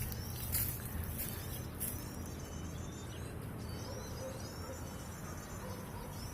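Insects chirping in short high-pitched bursts, most of them in the first two seconds, over a steady low background noise.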